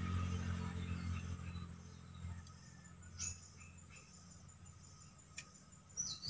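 A low engine drone fades away over the first two seconds or so. Faint short chirps and falling calls from small swamp wildlife follow, with a single sharp click about five seconds in.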